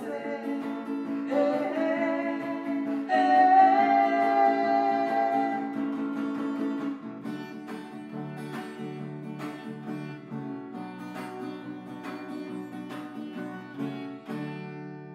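Sertanejo song ending: a steel-string acoustic guitar accompanies sung held notes. The voice stops about seven seconds in, and the guitar alone plays the closing phrase, picked note by note, ending on a chord that rings out.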